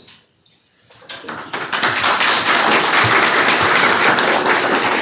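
Audience applauding: the clapping starts about a second in, builds quickly and holds steady.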